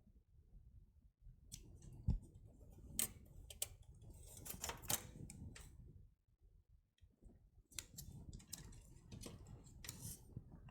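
Scattered light clicks and knocks of handling, a hard drive and its cable being fitted to a desktop PC.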